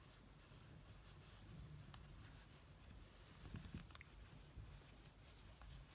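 Near silence, with faint rustling and a few soft ticks of a metal crochet hook working cotton yarn.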